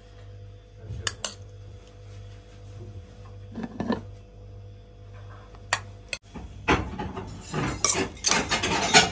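Metal spoon clinking and scraping against a cut-glass serving dish as saffron rice is spooned onto white rice: a few sharp separate clinks, then a busier run of taps and scrapes in the last couple of seconds.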